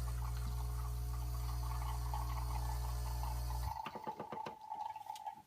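Saeco Incanto Classic espresso machine brewing a small shot: the pump hums steadily while the coffee pours into the cup, then cuts off about three and a half seconds in. A few drips and small clicks follow as the shot finishes.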